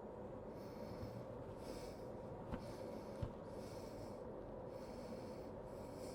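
Wood lathe running with a steady motor hum, a soft hiss swelling about once a second, and two small clicks a little past the middle.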